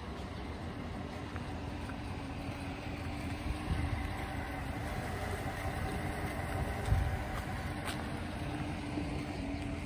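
5.3 L V8 of a GMC Sierra 1500 pickup idling steadily, with a low rumble of wind on the microphone and a couple of brief low bumps.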